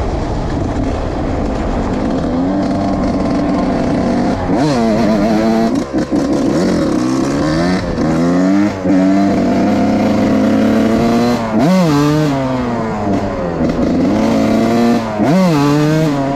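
Suzuki RM 125's single-cylinder two-stroke engine ridden hard, its pitch climbing and falling, with about four brief throttle cuts, each followed by a quick rise back up the revs.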